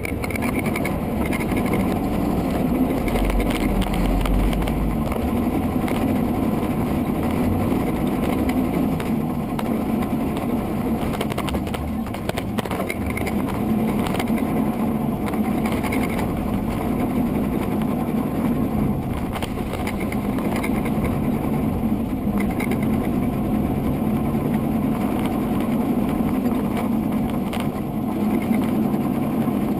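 Electric motor and propeller of an FPV radio-controlled aircraft running continuously, heard from the onboard camera with wind rush. The hum shifts up and down in pitch as the throttle changes.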